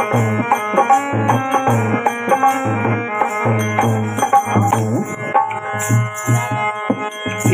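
Instrumental interlude of Indian devotional folk music: wooden kartal clappers with jingles clacking in rhythm over a steady drum beat and held melody notes.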